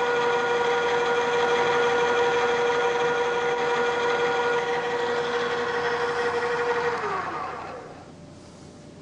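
Drill press running with a steady whine while a center drill starts a hole, then switched off about seven seconds in, its pitch falling as it winds down.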